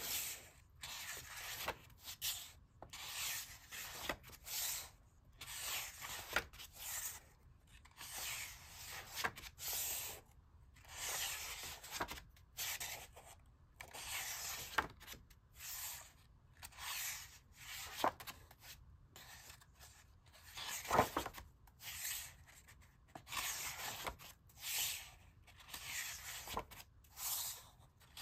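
Stiff, paint-coated paper pages of a mixed media art journal being handled and turned one after another by hand. Each turn is a short dry papery rustle and rub, coming every second or two, with an occasional light click or tap.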